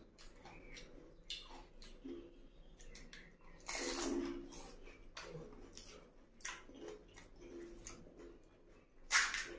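A person eating pani puri: crisp puri shells filled with spiced water being bitten and chewed, a scatter of small mouth clicks with louder bursts about four seconds in and again just before the end.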